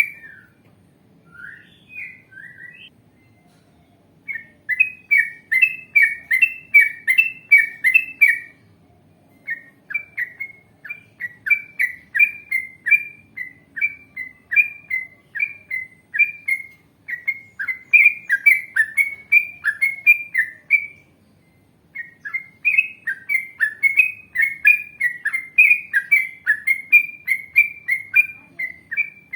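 Yellow-vented bulbul (trucukan) singing long runs of quick repeated chirps, about three notes a second. The song breaks off briefly about three seconds in and again around twenty-one seconds.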